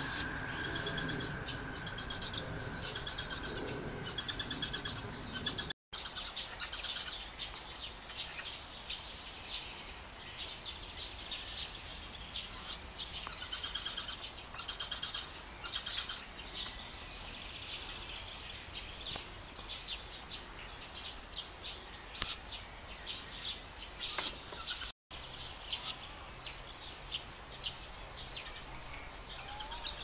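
Owl chicks in a nest box giving many short, high-pitched chirping calls while an adult owl feeds them: begging calls for food.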